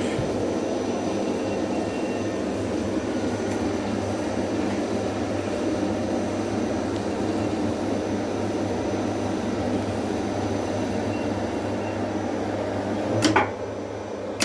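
Elevator traction machine and its NICE3000 drive running steadily while the car travels up, a hum with a thin high whine. Near the end a sharp clack and the running noise drops, as the car stops at the called floor.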